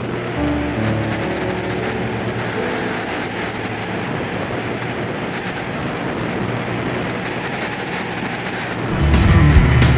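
Just Aircraft Highlander light aircraft's engine and propeller running steadily, a constant rumbling drone. About nine seconds in, much louder music with a heavy beat comes in over it.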